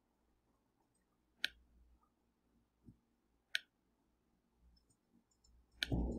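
Computer mouse button clicking: three sharp clicks about two seconds apart, with a fainter one between the first two, then a brief low sound near the end.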